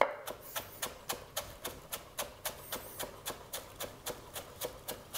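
Chef's knife chopping chives on a plastic cutting board: a steady run of quick knife taps, about five a second, with one louder knock at the very start.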